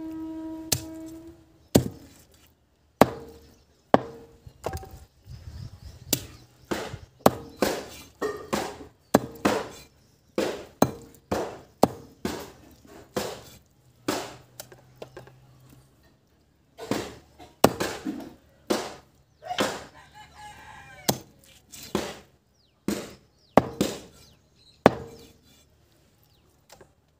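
A long knife chopping chicken into pieces on a wooden stump block: a series of sharp chops, about one or two a second, with a couple of short pauses.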